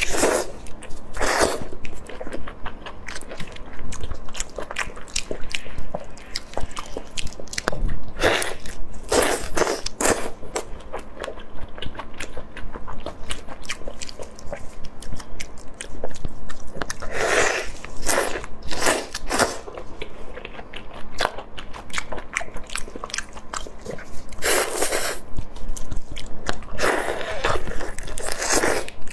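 Close-miked eating of soy-marinated shrimp: biting, crunching and chewing, with shells cracking. Sharp clicks run throughout, broken by several louder bursts.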